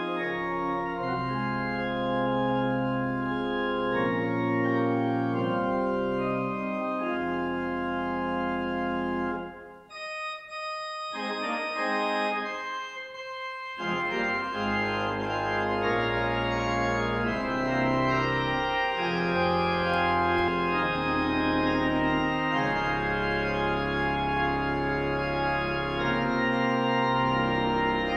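Pipe organ playing slow, held chords over a deep bass. About ten seconds in it briefly stops, plays a few seconds of softer, higher notes without the bass, then returns to full chords.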